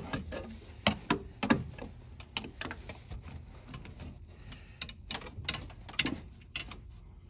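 Irregular light clicks and taps from hands and a tool handling metal parts, a dozen or so, bunched near the start and again about five to six seconds in.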